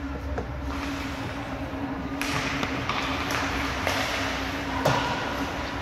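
Ice hockey rink sounds over a steady hum. From about two seconds in, skates scrape on the ice and sticks and puck clack, with one sharper knock near the end.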